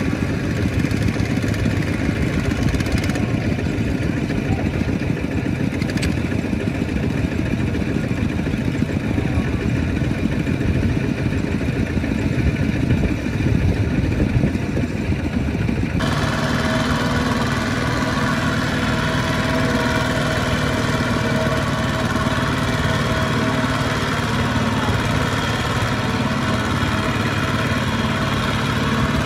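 Two-wheel walking tractor's single-cylinder diesel engine running steadily while it pulls a loaded trailer through a muddy rice field. About halfway through the sound switches abruptly to a second, similar tractor engine with a steadier, more even hum.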